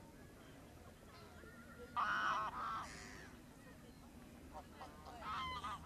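Greylag geese honking: two loud honks about two seconds in, then a quicker run of honks near the end.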